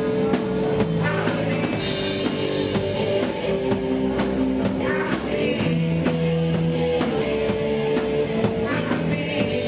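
Live punk rock song: electric guitar and drums playing steadily, with quick, even cymbal hits, and a man singing into a microphone in short phrases.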